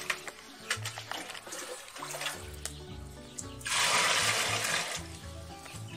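Hot water poured from a plastic bucket into a large metal pot, one splashing pour about four seconds in, with a few light knocks before it. Background music with a steady bass line plays underneath.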